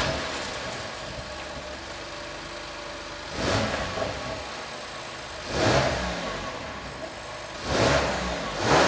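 BMW S55 3.0-litre twin-turbo inline-six, in completely stock form, idling and then blipped three times, about two seconds apart, each rev rising and falling back to idle.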